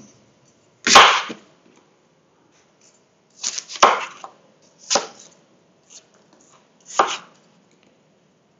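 Kitchen knife cutting apples on a chopping board: about four separate sharp cuts spread over several seconds, the loudest about a second in.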